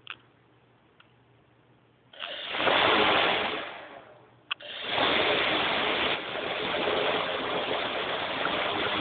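A quadcopter's four brushless motors and propellers spin up together, making a steady rushing whir of prop wash. A first burst about two seconds in dies away, a click follows, and a second spin-up about five seconds in holds steady.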